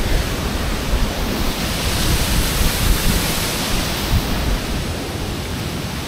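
Steady rushing of a waterfall, a loud even hiss with an uneven low rumble underneath.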